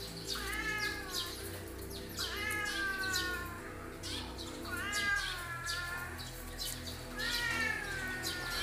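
Orange tabby cat meowing four times, about every two seconds, each call rising briefly and then falling in pitch.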